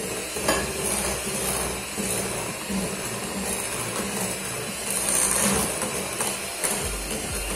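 Electric hand mixer running, its beaters churning thick pumpkin cake batter in a glass bowl, with a few sharp clicks along the way.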